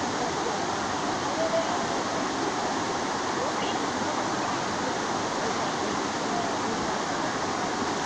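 Steady rush of a river's flowing water.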